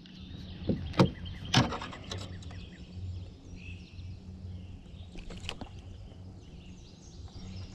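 A few sharp knocks in the first two seconds as a just-caught crappie and the tackle bump against the plastic kayak hull while the fish is picked up off the floor, then a few fainter ticks over a steady low hum.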